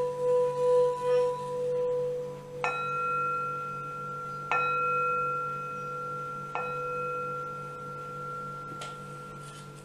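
Hand-held metal singing bowl played with a padded wooden mallet: first rubbed around the rim, its low tone pulsing as it sings and fading after about two seconds, then struck three times about two seconds apart, each strike ringing on and slowly dying away.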